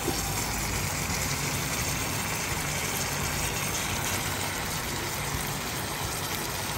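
Chicken, onion and sauce frying in a nonstick wok, a steady sizzle with a low steady hum underneath.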